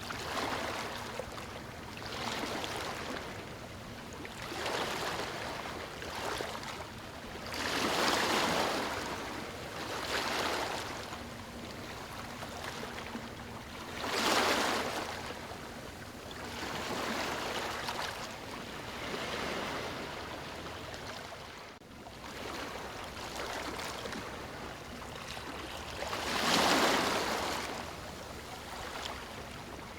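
Water splashing and rushing continuously, swelling and ebbing every couple of seconds, with a few stronger surges.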